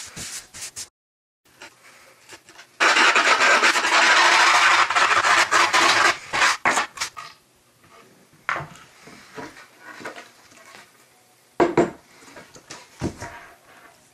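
Loud, rough rasping scrape lasting about three seconds, then a few shorter scrapes and knocks.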